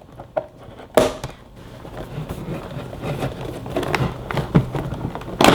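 Toy packaging being handled and opened: a sharp click about a second in, then crackling and rustling of cardboard and plastic with small clicks, growing louder toward the end.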